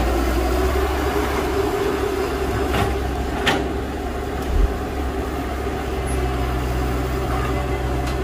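Heavy diesel construction machinery running steadily, with a few sharp knocks in the first few seconds and a short low thud about four and a half seconds in.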